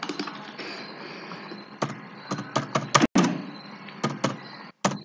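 Computer keyboard keys being typed: about ten sharp, separate clicks in an uneven rhythm starting about two seconds in, over a faint steady hiss.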